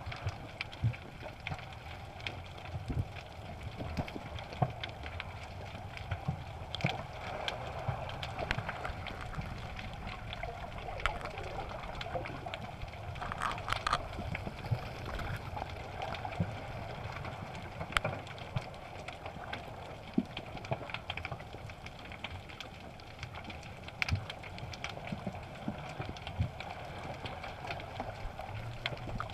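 Underwater ambience picked up by a camera in its waterproof housing: a steady wash of water with scattered sharp clicks and crackles, and a brief louder noisy burst about halfway through.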